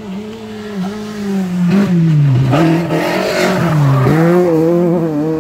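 Rally car engine through a tight hairpin. The revs dip and pick up again several times, there is a loud rush of noise as it passes closest, and then the revs climb steadily as it accelerates away near the end.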